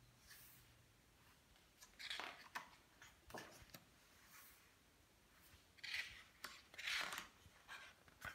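Pages of a hardcover picture book being turned and handled: a few soft paper rustles and slides, about two seconds in, again at about three and a half seconds, and a pair near the end, with quiet room tone between them.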